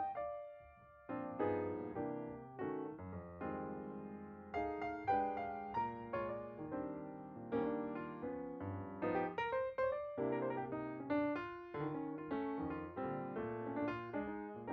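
Background piano music, a melody of struck notes with chords.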